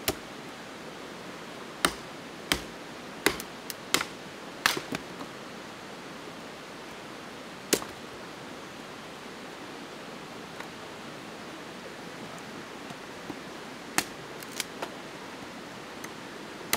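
Sharp, irregular cracks and knocks of a blade splitting slabs of dry, rotten wood and bark: a quick cluster over the first five seconds, a single crack near eight seconds, and a few more around fourteen seconds. A steady hiss runs beneath them.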